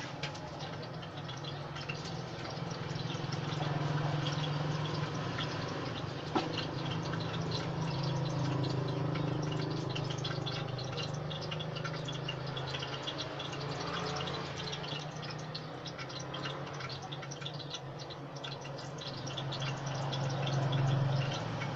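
Oil sizzling in a wok: a dense, steady crackle over a low hum.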